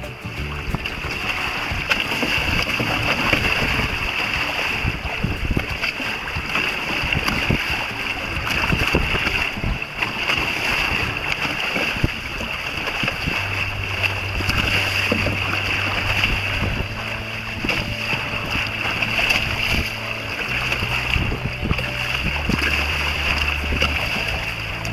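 Water rushing and splashing against the hulls of a Hobie Tandem Island sailing kayak moving under sail through choppy water. Faint background music with low notes comes in about halfway through.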